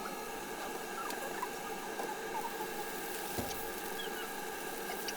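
Kitchen cooking sounds played back at four times speed: a steady hiss with many short high-pitched chirps and clicks scattered through it.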